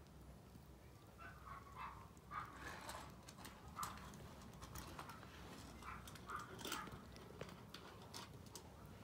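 Young kittens mewing faintly in many short, high squeaks while they wrestle, with light clicks and rustles of their scrambling.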